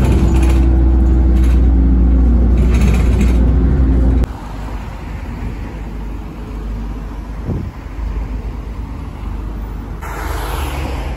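Diesel bus engine droning loud and deep, heard from inside the moving bus, cut off abruptly about four seconds in. Quieter street sound around a bus standing at a stop follows, with a vehicle rushing past near the end.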